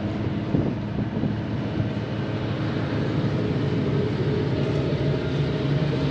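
Steady drone of a Nordhavn trawler yacht's diesel engine, heard on deck with wind noise on the microphone.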